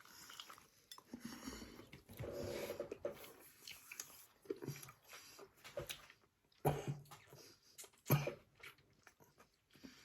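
A person huffing, breathing hard and coughing from the burn of a hot habanero chilli just tasted, with two sharp coughs in the second half.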